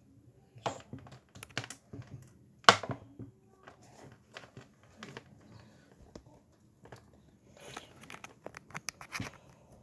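Irregular clicks, knocks and rustles of something being handled close to the microphone, with the loudest knock a little under three seconds in.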